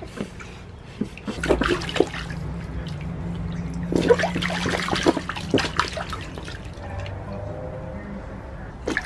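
Water splashing in a small inflatable baby tub as a baby slaps at it, in a few splashes about a second and a half in and a longer run of them midway, over background music.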